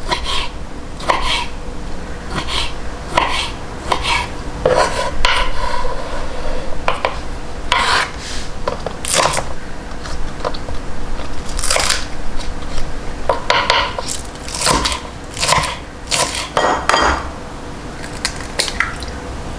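Cutlery and dishes clinking and scraping in an irregular run of short, sharp knocks, as in kitchen or table work with plates and utensils.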